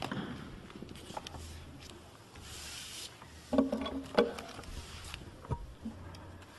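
Courtroom handling noise as a lawyer comes up to the lectern: a soft rustle, then a short low sound with two sharp knocks a little past halfway, and another light knock later.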